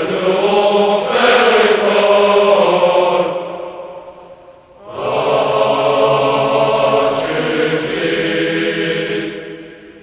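Choral singing of a slow song in long held phrases; the singing fades away just before the middle and comes back about five seconds in, fading again near the end.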